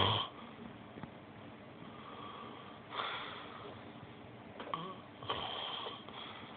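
Snoring in sleep: two snore breaths, one about three seconds in and a longer one near the end, with faint breathing between and a small click just before the second.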